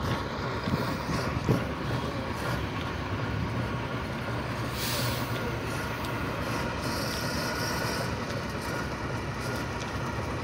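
Eight-wheeled off-road trial truck's engine running steadily as the truck crawls over rutted sand, with a brief hiss about halfway through.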